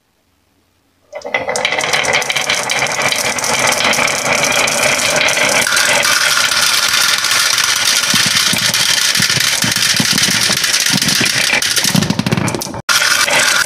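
Many glass marbles rolling and clattering down a wavy wooden marble-run track, a dense continuous rattle that starts about a second in. Near the end marbles tumble into a plastic toy truck and knock onto the table, and the rattle breaks off suddenly and starts again.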